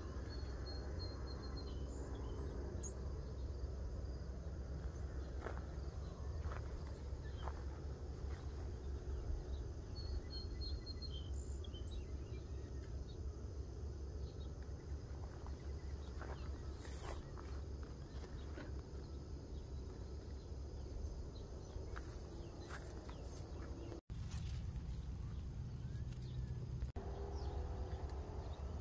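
Outdoor garden ambience: a steady low rumble with a few faint short bird chirps and insect sounds.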